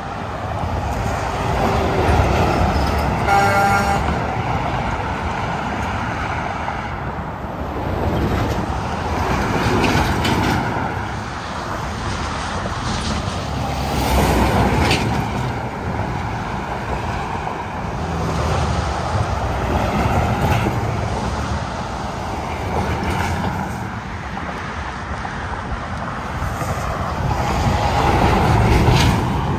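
Interstate highway traffic, with trucks and cars passing one after another; the sound swells and fades as each vehicle goes by. A short pitched tone sounds about three seconds in.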